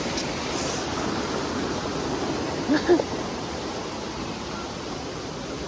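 Steady rush of a mountain river running after heavy rain, an even hiss of water. A short louder sound stands out about three seconds in.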